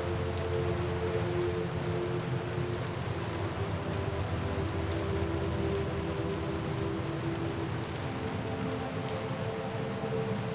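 Steady rain falling, with scattered drop ticks, over a soft bed of held low tones that change every few seconds.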